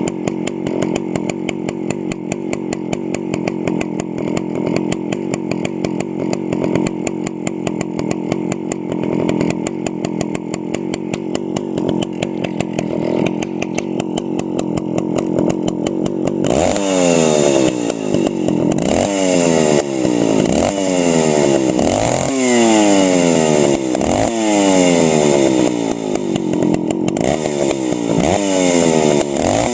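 Stihl 041AV two-stroke chainsaw engine running steadily at low speed, off load. From about halfway it is revved over and over, each rev rising sharply and dying back down. Without a load it runs a little rich.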